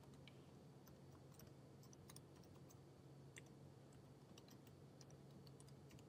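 Faint computer keyboard typing: irregular key clicks over a low steady hum.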